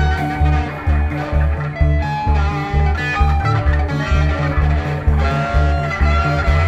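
Instrumental background music with a steady, pulsing bass beat, about two beats a second.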